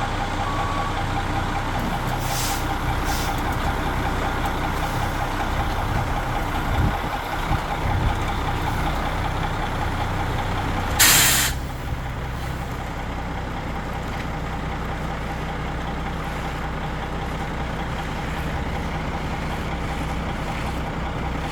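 Concrete mixer truck's diesel engine running steadily, with its reversing beeps stopping in the first second. There are two short air hisses around two and a half and three seconds in, and a loud air-brake hiss about eleven seconds in, after which the engine runs a little quieter.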